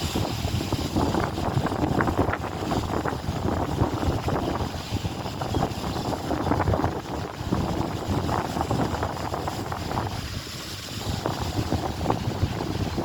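Strong gusty wind buffeting the microphone, a constant low rumbling rush with a brief lull about ten seconds in.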